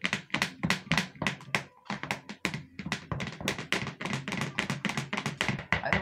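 Plastic spatula knocking and scraping against the inside of a plastic blender jar while stirring down a foamy soap mixture, about five quick taps a second.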